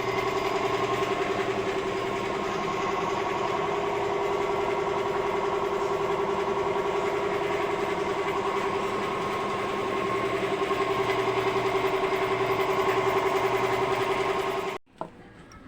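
A small motor running steadily at an even pitch, starting and stopping abruptly.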